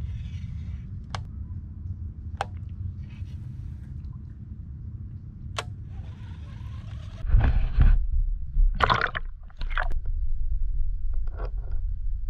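Low, steady rumble of wind and handling on the microphone with a few sharp clicks. About seven seconds in come loud water sloshing and splashes, then the dull, steady rumble of a microphone underwater.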